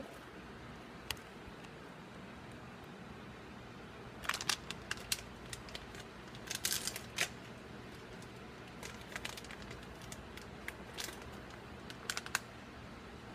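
Scattered light clicks, taps and crinkles in short clusters, the handling noise of things being moved about on a kitchen counter, over a steady low room hum.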